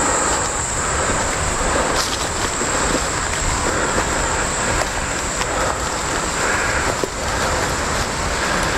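A vehicle driving along a rough bush track: a steady rumble with wind on the microphone, over a constant high insect drone.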